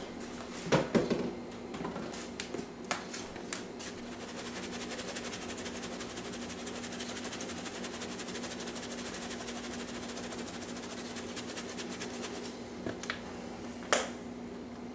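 Hand spice grinder being twisted over a raw turkey, giving a rapid, even run of fine grinding clicks from about 4 s to about 12 s. A few light knocks come before it and one sharper knock near the end, over a steady low hum.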